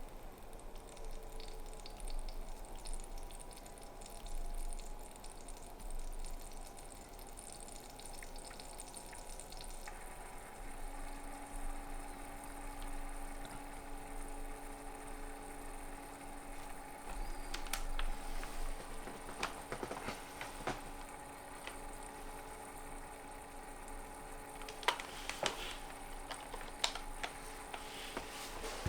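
Desktop PC's cooling fans whirring during a reboot, their steady tones gliding at first and changing pitch about ten seconds in. A few sharp clicks come in the second half.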